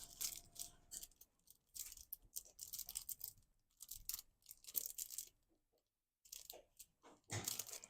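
Faint, scattered rustling and small clicks of small electronic component packets being handled and sorted through, with a louder rustle near the end.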